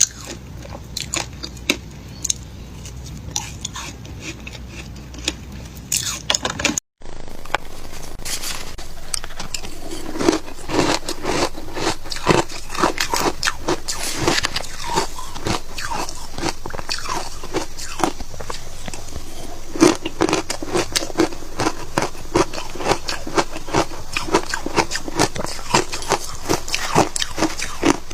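Frozen passion fruit shaved ice being bitten and chewed: rapid, irregular crunching. The sound cuts out briefly about seven seconds in, and the crunching is louder after that.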